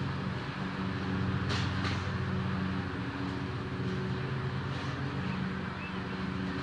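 Toro Recycler walk-behind lawn mower's small engine running steadily under mowing load, a constant drone with a slight wavering in pitch. Two short scratchy sounds are heard about a second and a half in.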